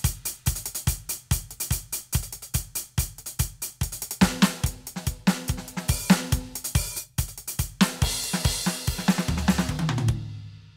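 Roland TD-17KVX electronic drum kit played through its sound module: a fast groove with rapid kick-drum strokes under snare, hi-hat and cymbal hits. Near the end it finishes on a low ringing hit that cuts off suddenly.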